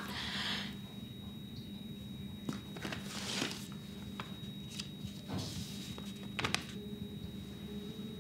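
Sheet of paper crinkling and rustling in short bursts as it is handled and unfolded, over a faint steady hum.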